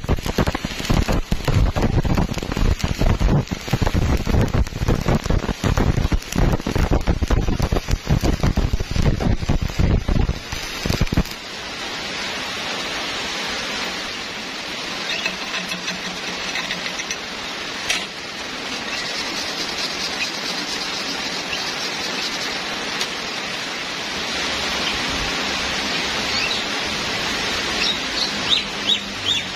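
Stick (shielded metal arc) welding arc crackling and sputtering while a vertical bead is run on thick steel plate, cutting off abruptly about eleven seconds in when the arc is broken. A steady hiss follows, with a few faint short chirps near the end.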